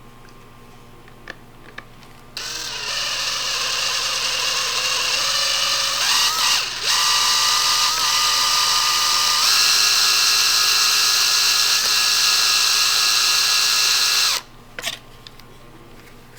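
A handheld electric power tool's motor runs for about twelve seconds, starting a couple of seconds in and cutting off suddenly near the end. It gives a steady whine with a hiss and steps up in pitch twice along the way.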